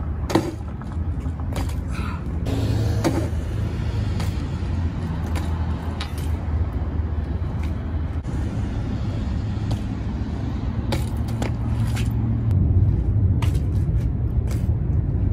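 BMX bike riding over rough asphalt: its tyres rolling and the frame giving scattered sharp clicks and knocks, over a steady low rumble.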